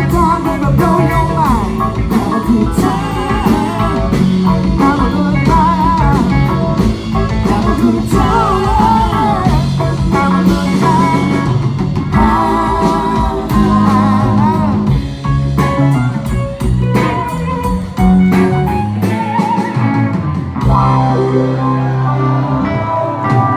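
Live rock band playing electric guitars, keyboards, bass and drums, with a wavering lead melody line over a steady beat.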